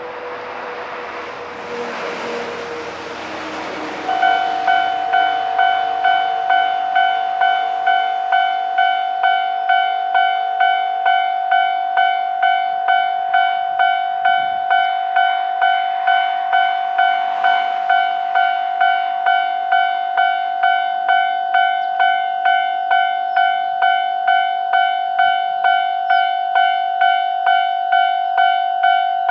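Level-crossing warning bell starting about four seconds in and ringing evenly at about two strikes a second, warning that a train is approaching. Before it starts, a rushing noise with a faint falling tone.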